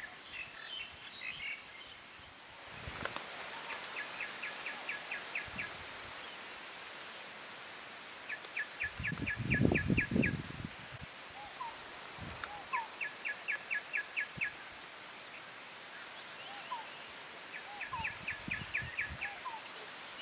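Wild birds calling in a forest. A rapid trill of about nine sharp notes comes four times, every four to five seconds, over scattered high, thin chirps. A short low rumble about halfway through is the loudest sound.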